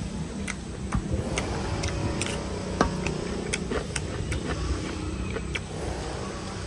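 Mouth sounds of a person eating grilled pork belly by hand: chewing and lip-smacking, heard as a string of irregular sharp clicks, about one or two a second, over a low steady rumble.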